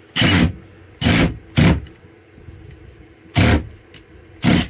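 Milwaukee Fuel cordless drill with a Phillips bit running in five short bursts, backing out the screws of a window-shade mounting bracket.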